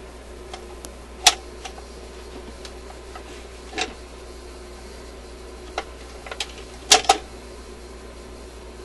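Scattered sharp clicks and knocks from hands working an Admiral suitcase record player's changer mechanism, about six in all, the loudest a quick double click about three-quarters of the way through, over a steady low hum.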